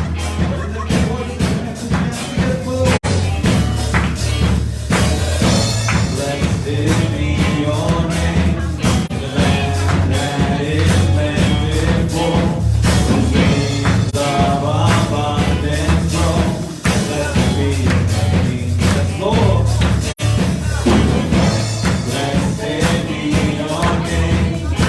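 Church worship music: a band playing with singing over a steady beat and heavy bass.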